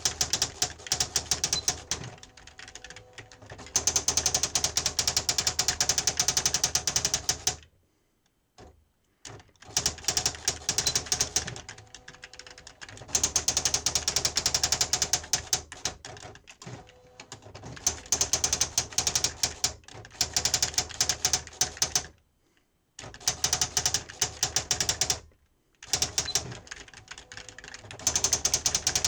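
Sharp PA-3000II electronic daisy-wheel typewriter being typed on, its daisy wheel striking characters in rapid clattering runs. The runs are broken by a few brief pauses and quieter stretches.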